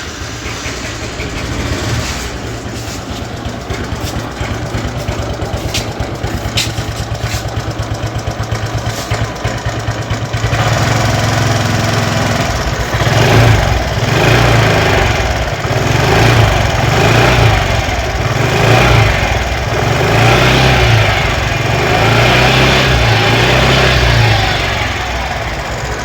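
Aprilia Storm 125 scooter's single-cylinder engine and exhaust idling steadily, then revved in a series of short throttle blips from about ten seconds in.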